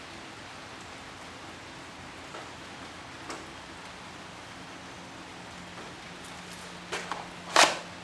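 Plastic cover being slid and snapped shut over a wall-mounted fingerprint-scanner case: a few light clicks and then one sharp, loud snap near the end, over a steady background hiss.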